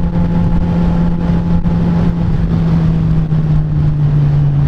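2007 Suzuki GSX-R 750's inline-four engine running at a steady cruise under way, its note sagging slightly lower toward the end.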